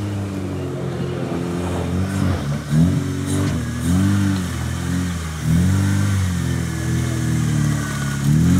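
Off-road trials buggy's engine running steadily, then revving up and down over and over, about once a second, as it is driven over rough ground.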